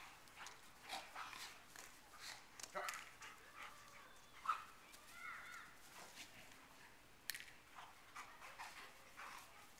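Two dogs at rough play, heard faintly: a few short yips and whines among scattered clicks and knocks, the loudest a sharp knock about halfway through.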